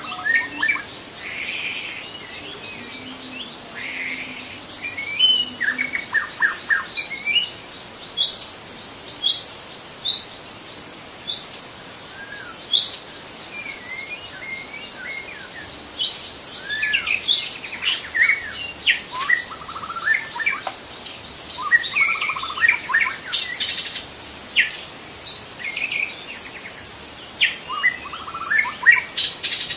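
White-rumped shama singing a varied run of short whistles and quick rising chirps, in phrases that come thicker in the second half. A steady high-pitched insect drone runs underneath.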